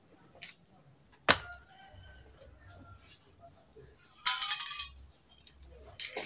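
Handling of an aerosol spray paint can: a sharp metallic click with a brief ring, then a short, louder clattering rattle about three seconds later, and another near the end.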